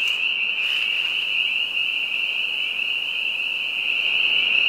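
A large chorus of frogs calling from a bog. Their many high-pitched calls blend into one steady, deafening wall of sound.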